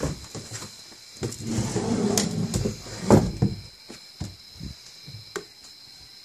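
Handling noise close to the microphone: rustling, scraping and clicks, with a rough scuffle in the middle and a loud knock about three seconds in, over a faint steady high-pitched tone.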